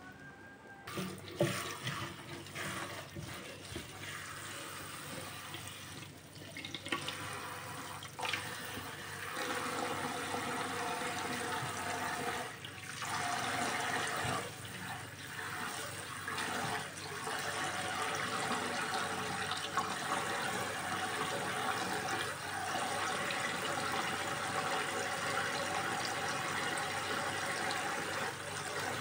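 Kitchen tap water running into a bowl of bean sprouts in a stainless steel sink, with a hand swishing and rubbing the sprouts in the water. The flow comes on about a second in and then runs steadily.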